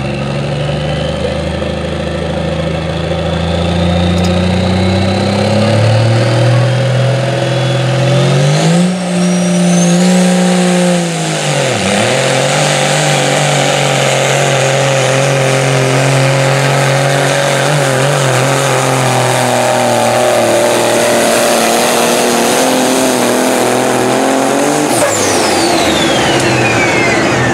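Peterbilt semi truck's diesel engine at full throttle pulling the sled. The engine note climbs over the first several seconds with a rising turbo whine above it, dips sharply about a third of the way in, then holds high and steady. Near the end the engine drops off and the turbo whine falls away.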